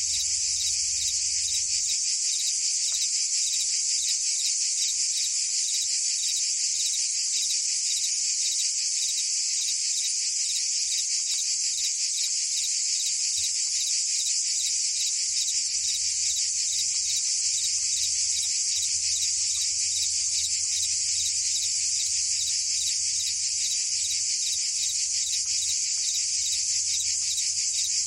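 Dense, steady chorus of cicadas and crickets: an unbroken high-pitched buzzing trill with a fast, even pulse.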